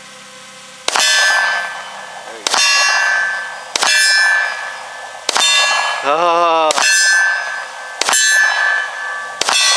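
Seven handgun shots at a steel target, about one and a half seconds apart, each hit ringing out with a metallic clang. A voice calls out briefly about six seconds in.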